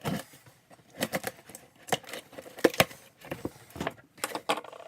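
A cardboard box and its packaging being opened and handled: a string of short clicks, taps and rustles, with two sharper knocks about two and about three seconds in.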